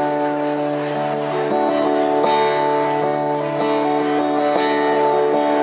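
Acoustic guitar chords strummed and left to ring, with fresh strums about two seconds in and again later.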